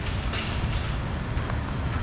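Hiss of heavy rain over the steady low rumble of a nearby vehicle engine, with short splashy bursts every half second or so.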